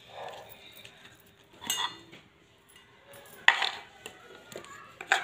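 A few separate sharp clinks and knocks of a steel knife and spoon against a chopping board and steel dishes while chopped cabbage is cut and scooped up; the loudest comes about three and a half seconds in.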